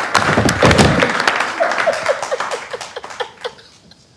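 Audience applause at banquet tables, fading away over about three seconds. Partway through, a man laughs in a quick run of short, slightly falling 'ha' sounds.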